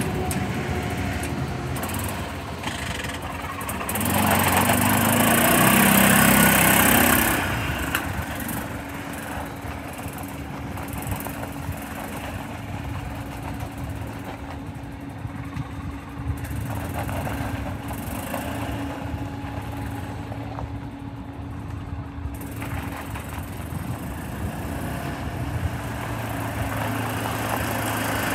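2009 Arctic Cat Prowler XTX 700 UTV's engine running as it drives around on gravel. It is loudest between about four and seven seconds in, with a strong hiss, quieter in the middle as it moves off, and louder again near the end as it comes back.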